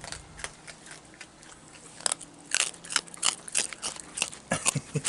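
Raccoons crunching and chewing their food: sharp, irregular crunches several times a second, starting about two seconds in.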